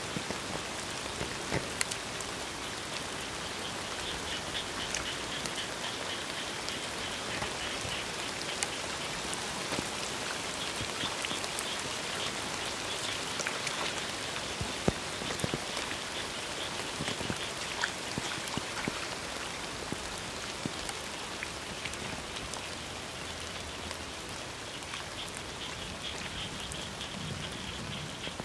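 Steady rain falling on a flooded rice paddy, an even hiss with scattered drop ticks. Frogs call in a rapid, high, pulsing trill from about four seconds in for several seconds, and again near the end.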